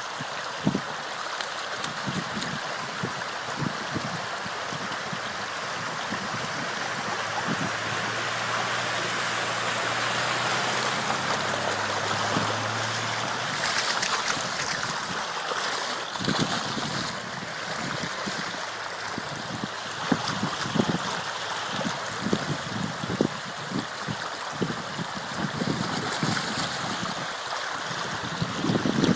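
Shallow floodwater rushing steadily across a road, with frequent short splashes from salmon thrashing through it. A low steady hum joins in for a few seconds about a third of the way in.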